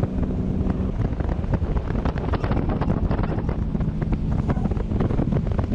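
Wind buffeting the microphone over the steady drone of a Sea-Doo Switch pontoon boat's engine at full throttle, up on plane. The hull slaps again and again on choppy water.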